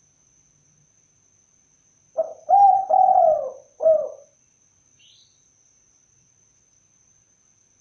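Spotted dove (tekukur) cooing: one phrase starting about two seconds in, a short note followed by two longer drawn notes and a final short note.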